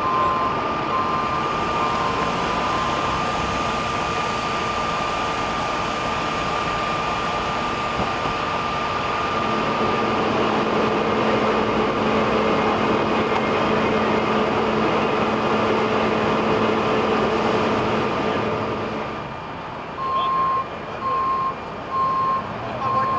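Steady mechanical noise of heavy vehicle engines and freeway traffic, with a low engine hum holding for several seconds in the middle. A vehicle's reversing alarm beeps in the first few seconds and starts again near the end.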